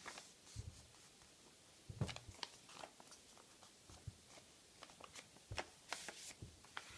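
A sheet of A4 office paper rustling and crackling in irregular short crinkles as it is folded in half and creased by hand, with a few soft knocks.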